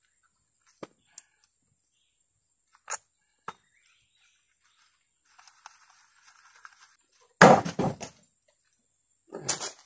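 Dry leaves and wood being handled: a few light knocks, a stretch of soft rustling, then two loud crunching crashes of dry leaves and sticks, the loudest about seven and a half seconds in and another near the end.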